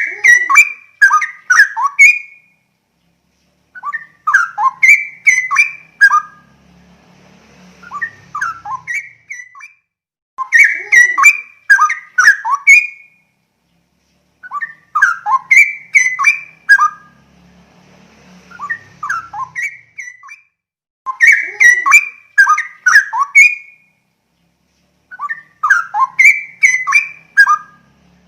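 Straw-headed bulbul (cucak rowo) singing: loud phrases of rapid whistled notes, some gliding, each about two seconds long and repeated every four to six seconds, with quieter answering phrases in between.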